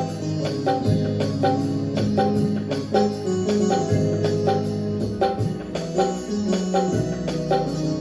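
Yamaha PSR-i500 portable keyboard playing a song: a melody and held chords over the keyboard's auto-accompaniment style, with a steady percussion beat a little over two strokes a second.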